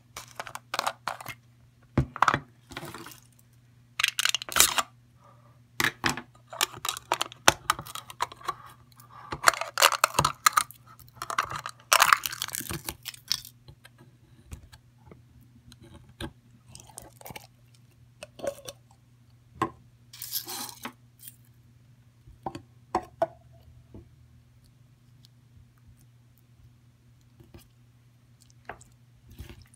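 Store-bought fudge slime being poked, squeezed and pulled by hand, giving irregular sticky clicks and crackling squishes. They come thick and fast in the first half and thin out near the end.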